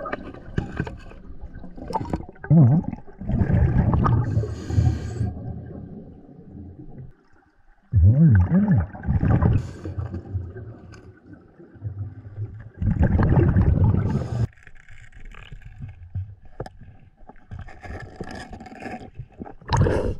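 Muffled underwater sound from a diver: uneven bursts of rushing water and gurgling bubbles, with a few low warbling sounds among them.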